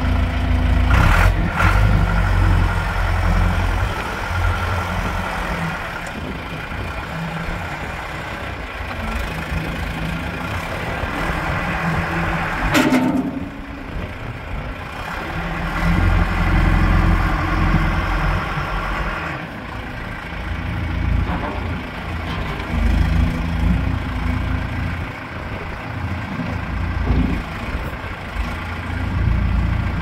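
John Deere 410G backhoe loader's turbocharged diesel engine running, its note swelling in several bursts as the loader hydraulics lift and lower the front bucket. There is one sharp knock about 13 seconds in.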